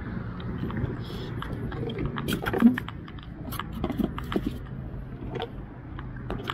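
Plastic bait bucket and its moulded lid being handled and pulled off, giving a scatter of clicks and knocks; the loudest knock comes about two and a half seconds in.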